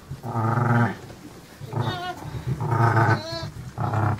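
Sheep bleating: a ewe gives three short, low calls to her newborn lambs, and higher, wavering bleats come in twice, about two seconds in and again a little past three.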